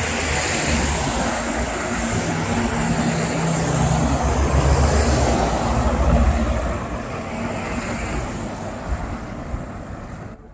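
A passing motor vehicle: a steady engine-and-rush noise that builds to a peak about halfway through, then fades. It cuts off abruptly at the end.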